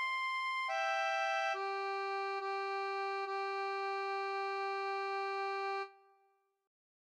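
Background music on a keyboard with sustained, synthesizer-like tones: a couple of quick chord changes, then one chord held for several seconds that fades out about six seconds in.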